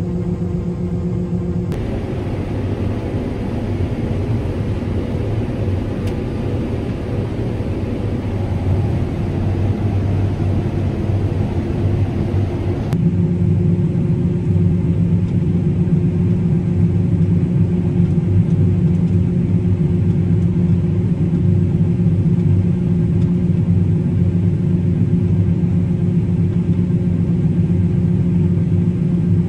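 Combine harvester running steadily while harvesting corn, heard from inside the cab: a constant engine and machine hum with a low drone. The sound changes abruptly about two seconds in and again about thirteen seconds in.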